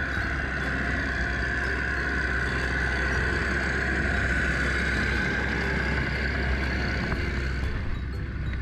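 Small crawler tractor's engine running steadily as it works through flooded paddy mud, a little louder in the middle as it passes close by.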